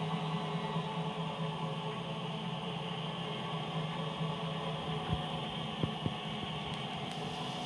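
Hotpoint Ariston washing machine running a spin, with the drum turning at a steady high speed: a low hum under a whine. A few short knocks come about five to six seconds in.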